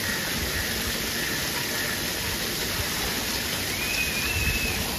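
Steady rush of running and splashing water from a pool's water play area, with a faint high call about four seconds in.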